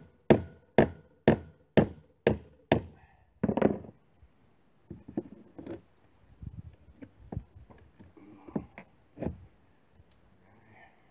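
Hammer blows on the wooden gunwale rail of an old rowboat, driving nails: steady strikes about two a second for the first three seconds, then a few softer, irregular knocks and taps.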